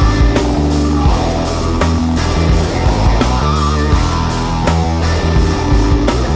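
Rock music with guitar, a driving bass line and a steady drum beat.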